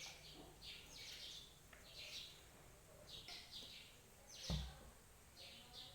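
Small birds chirping over and over in the background, short falling chirps about two a second. There is one thump about four and a half seconds in.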